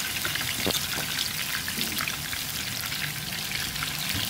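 Croaker fish pieces sizzling and crackling as they fry in shallow hot oil in a pan.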